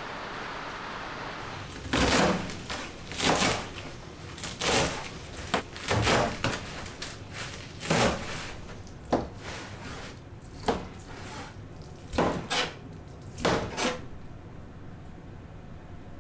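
Kitchen knife chopping spinach on a cutting board: about a dozen sharp knocks at uneven spacing, roughly one a second, stopping near the end. Steady rain hiss before the chopping starts.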